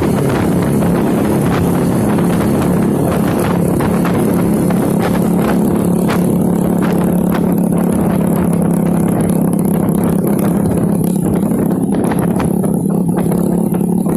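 Small motorcycle engine running at a steady cruise, a constant drone, with wind and road noise.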